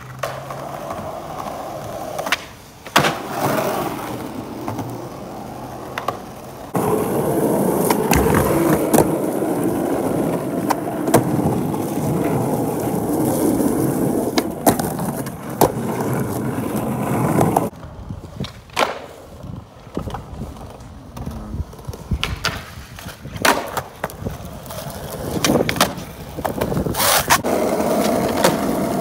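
Skateboard wheels rolling on rough asphalt, with sharp clacks of the tail popping and the board landing between stretches of rolling. The rolling is loudest and steadiest for about ten seconds in the middle, then breaks into separate hits.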